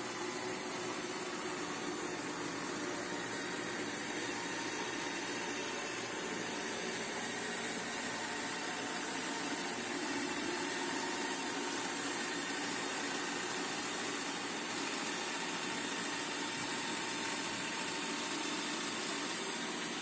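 Roomba 676 robot vacuum running as it drives over carpet, homing to its charging dock; a steady whirring hum.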